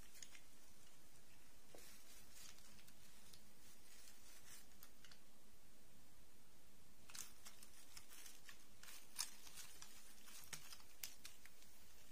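Faint rustles and small plastic clicks of hands handling dolls on an artificial-grass mat: a fashion doll's dress being smoothed and small plastic princess figures being picked up and set down. The clicks come more often in the second half, with one sharper click about nine seconds in.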